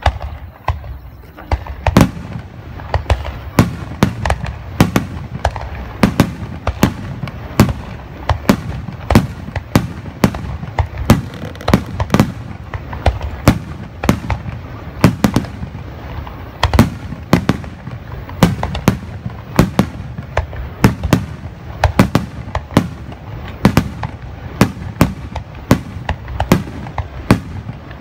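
Aerial firework shells bursting in rapid succession: sharp bangs about two a second over a continuous low rumble from the overlapping bursts.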